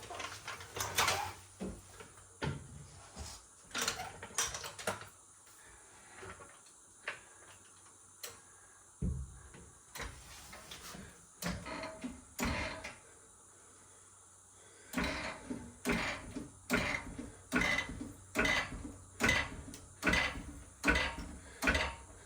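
A jack being worked under the truck to lift the rear axle and take the weight off the leaf springs: scattered knocks and clanks at first, then, after a short pause, a steady run of pump strokes, about three every two seconds.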